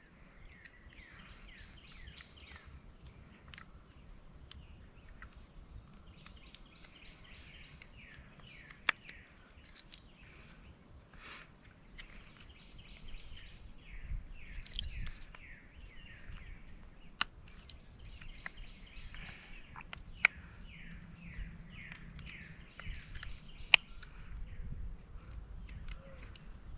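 A songbird repeats a short phrase of quick down-slurred notes about every five seconds. A few sharp single clicks come from a small pocket-knife blade cutting a notch into a wooden bow drill fireboard.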